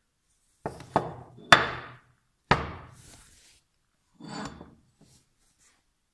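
A thick milled 7075 aluminium plate knocking down onto a wooden workbench: four knocks in the first two and a half seconds, the third the loudest, then a short, softer scrape as it is shifted on the bench.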